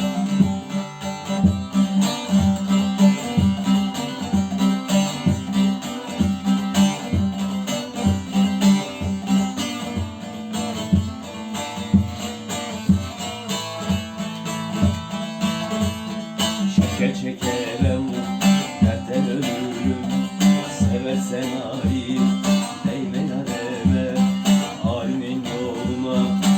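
Strummed plucked string instrument playing an instrumental passage of a Turkish folk song, with evenly repeated strokes over a steady held low note; the melody grows busier near the two-thirds mark.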